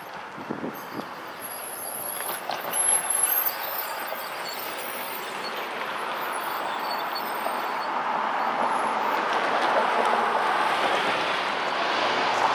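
Freight train tank cars rolling on the rails: a steady rushing noise of steel wheels on track that grows louder toward the end, with a few short knocks in the first few seconds.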